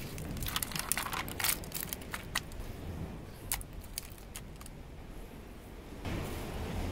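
Mussel and goose barnacle shells clicking and clattering as they are handled and dropped into a steel pot: a quick run of sharp clicks in the first few seconds, then quieter. A rougher scraping noise rises near the end.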